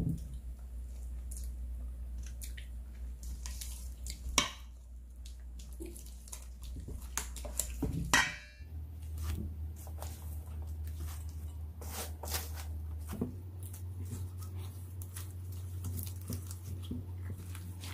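Silicone spatula stirring a thick, wet gochujang sauce in a stainless steel bowl: sticky squelching with soft scrapes and taps against the bowl, and sharper scrapes about four and about eight seconds in, over a low steady hum.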